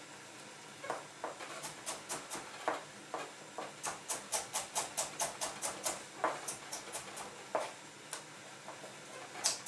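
Chef's knife slicing a carrot into thin strips on a plastic cutting board: crisp taps as the blade cuts through and hits the board, coming in a quick run of about three or four a second through the middle, with a few single cuts near the end.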